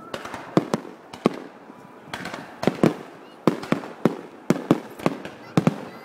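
Aerial firework shells bursting overhead: a dozen or more sharp bangs at uneven intervals, some coming in quick pairs.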